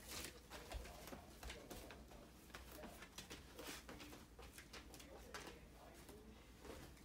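Faint, quiet sniffing and soft short scuffs from a Japanese Akita puppy searching with her nose around metal pails on a vinyl floor, a scattering of brief irregular sounds over near silence.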